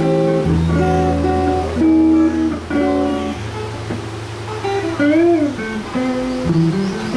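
Les Paul-style electric guitar played with a clean tone through a Roland combo amp. Held chords give way to a melodic line with string bends about five seconds in.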